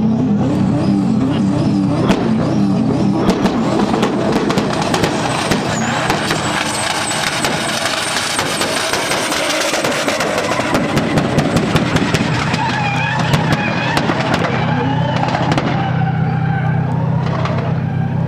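An SUV's engine revving hard as it launches and drives down the track with tyres spinning and skidding, smoke pouring off them, with many sharp crackles through the loudest middle stretch.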